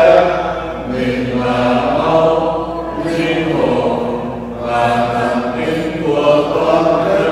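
Voices chanting a Vietnamese Catholic prayer: held, steady-pitched sung notes broken by short pauses between phrases.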